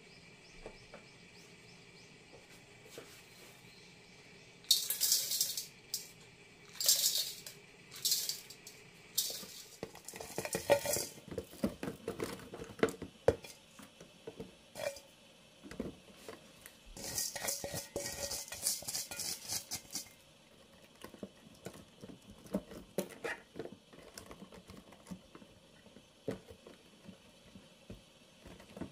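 Salt and mini cucumbers shaken in a stainless steel colander: a string of short, hissing, metallic rattles from about five seconds in, and a longer one past the middle. Between and after them come scattered soft knocks and taps as the salted cucumbers are packed into a plastic storage box.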